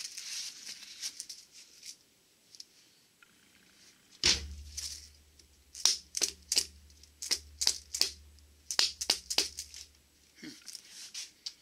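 Dead blow hammer striking the bearing on a Borg Warner T-10 four-speed mainshaft to seat it: a quick run of a dozen or so sharp strikes starting about four seconds in, after some handling noise. The hammer's worn rubber face is shedding small bits.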